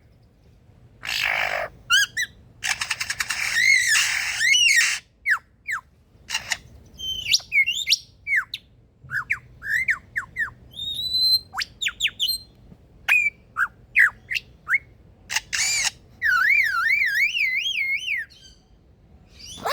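Male superb lyrebird singing a mimicry medley: harsh rasping bursts, then quick whistled glides and clicks, and near the end a wavering, siren-like whistle in imitation of an alarm.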